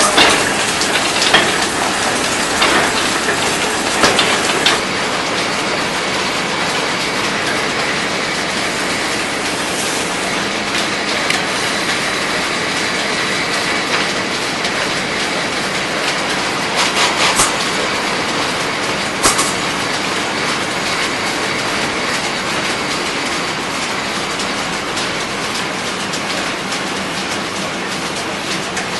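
Belt-driven bobbin-mill lathe-room machinery running with a steady clatter, with a few sharper knocks in the first five seconds and two more about two-thirds of the way through.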